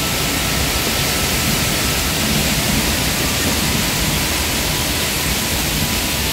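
Steady, loud rushing noise that fills the whole sound range and does not change.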